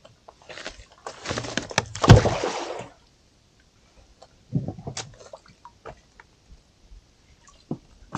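A thrown rope slapping and splashing into shallow seawater, loudest with a heavy splash about two seconds in, then quieter scattered knocks and rustles as the wet line is hauled back in.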